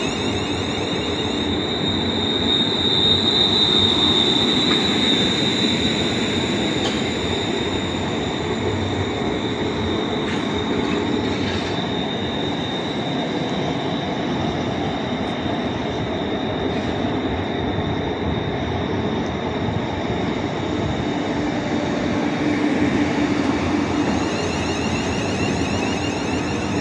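A train running through the station: steady rolling noise with a high-pitched tone held over it, loudest about three to five seconds in.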